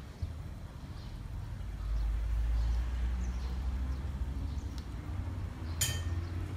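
A metal ladle clinks once, sharp and ringing, against a stainless steel cooking pot near the end, over a low steady rumble.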